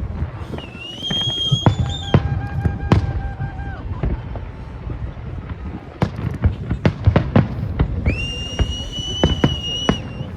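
New Year's fireworks going off: a stream of sharp bangs and crackles, with high steady whistles from whistling fireworks, one early, one lower around the second to fourth second, and one near the end.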